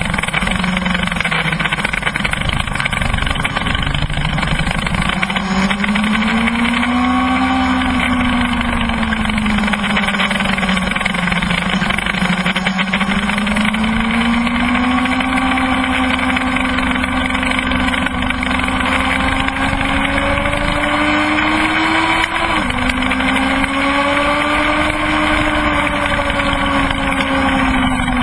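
Kawasaki ZX-12R inline-four sport bike engine at speed, heard from on board over heavy wind rush. The engine's pitch rises and falls with the throttle through the corners, and it drops suddenly at a gearshift about three-quarters of the way through.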